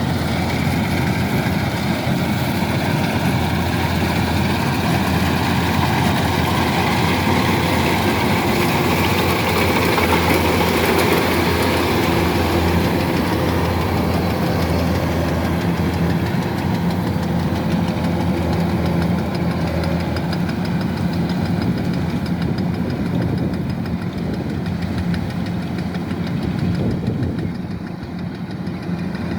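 Kubota DC-105X combine harvester running steadily, its diesel engine humming under a broad mechanical hiss. The hiss thins out in the last several seconds.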